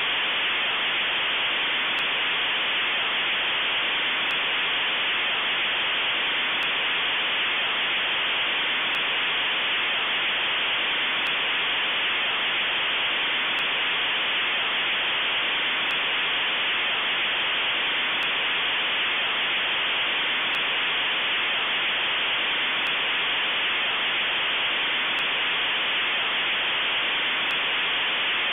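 Steady hiss of static: even white noise at an unchanging level.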